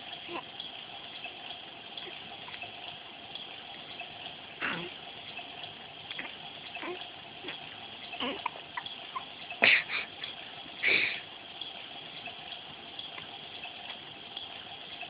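A baby hiccupping: short, sudden hiccups a few seconds apart, the two loudest coming about two-thirds of the way through, over a steady background hiss.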